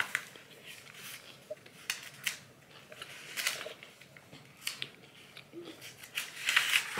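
A person chewing a crisp fried vegetable spring roll: irregular crunches, about one every second or so.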